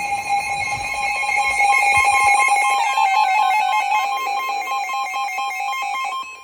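Emergency Alert System attention signal: a loud, steady, harsh two-tone electronic alert tone, which drops away near the end.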